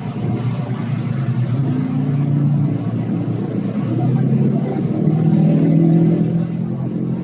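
Large diesel bus engine accelerating past, a low drone whose pitch climbs twice and is loudest about five to six seconds in.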